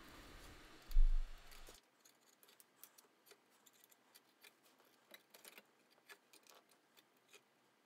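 A dull thump about a second in, then faint, scattered small clicks and taps of jumper wires being pushed into the coiled spring terminals of an electronic project kit.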